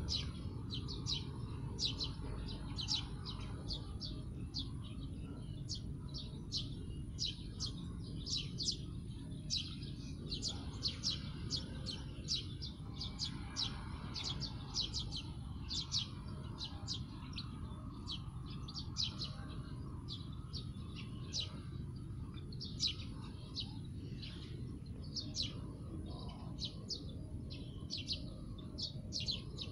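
Small birds chirping in many short, high notes, several a second and irregular, over a steady high-pitched insect drone and a low, even background rumble.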